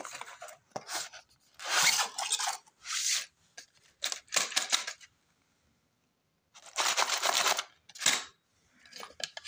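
Cardboard box being opened and metal watches, bangles and chains rummaged inside it: rustling, scraping and clinking in short bursts, with a pause of about a second and a half halfway through.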